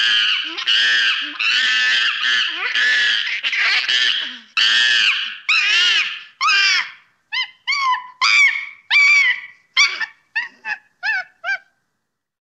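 Young macaque screaming in distress while caught up with a snake: long, high, wavering screams at first, breaking after about six seconds into shorter and shorter cries that stop shortly before the end.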